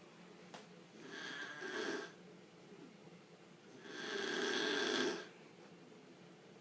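An elderly woman snoring loudly in her sleep: two snores about three seconds apart, the second longer and louder.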